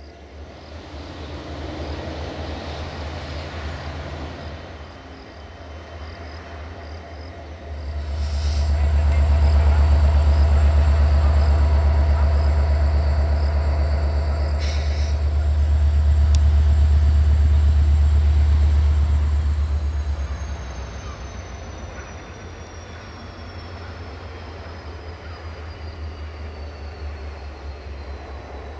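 GM diesel engine of a diesel-electric locomotive running under power as its passenger train pulls out, a deep rumble that grows much louder about eight seconds in and eases off about twenty seconds in.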